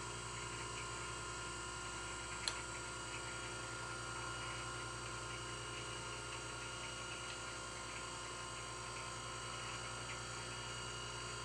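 Taft-Peirce surface grinder running, its wheel spindle and motor giving a steady hum with several fixed tones while the wheel is lowered to touch off on the vise jaws. Faint scattered ticking, and one sharp click about two and a half seconds in.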